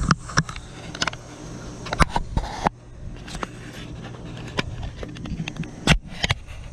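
Scattered sharp clicks and knocks from handling tools and parts, over a steady low hum.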